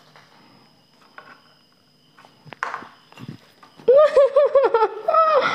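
A quiet room with a few faint taps and a thin steady high tone, then about four seconds in a woman bursts into loud laughter in quick repeated 'ha-ha' pulses.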